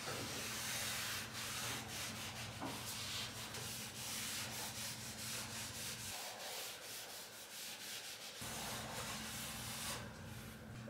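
Cloth rag rubbing wood stain onto a bare wooden staircase: repeated wiping strokes of cloth on wood.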